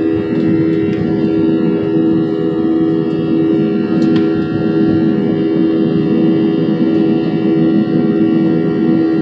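Jet engine and airflow noise heard inside the cabin of a Boeing 737-900ER in flight: a loud, steady drone with a strong steady hum underneath.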